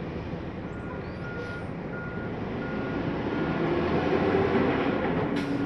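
A vehicle backup alarm beeping at an even pace, about one and a half beeps a second, over a steady engine rumble that grows louder toward the end.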